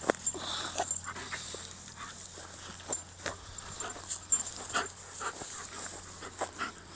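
German Shepherd close to the microphone, panting, with irregular short clicks.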